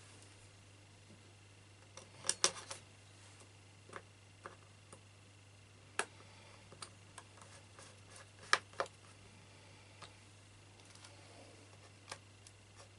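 Scattered small clicks and taps of a small screwdriver and tiny screws against the aluminium bottom case of a MacBook Pro as the screws are set loosely into their holes, with a brief cluster of clicks about two seconds in and another about eight and a half seconds in.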